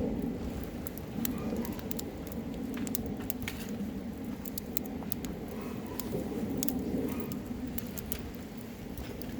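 Wood campfire burning, with irregular sharp crackles and pops of the burning wood over a steady low rumble.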